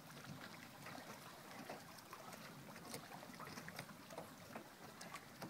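Faint lake water lapping against a dock and an aluminium boat's hull, with small scattered splashing ticks.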